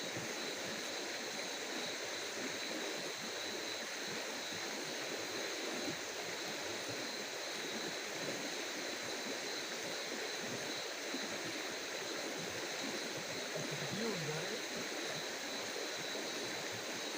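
Steady outdoor night ambience: an even, constant hiss with a steady high-pitched drone running through it.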